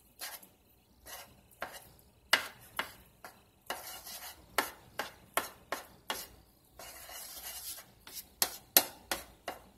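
Black cooking spoon scraping and knocking against a stainless steel skillet as lumps of solid coconut oil are stirred around to melt, in irregular scrapes and taps.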